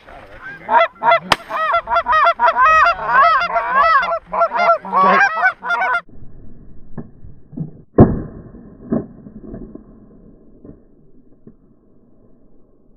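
Flock of Canada geese honking, many calls overlapping, stopping about six seconds in. About two seconds later comes a loud sharp bang, then a smaller one about a second after it.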